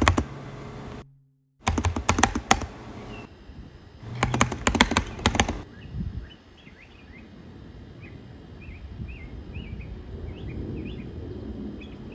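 Two brief bursts of rapid clicking and rattling. Then a quiet outdoor background with small birds chirping again and again in short, high, rising notes.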